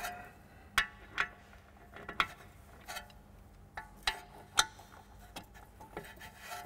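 Ratchet wrench clicking as the brake caliper mounting bolts are loosened, in separate sharp clicks at irregular intervals.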